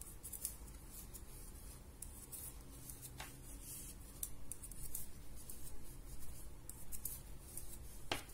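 Metal knitting needles clicking together and yarn rubbing as garter stitches are worked: quick, faint, irregular ticks, with a sharper click a little after three seconds and another near the end.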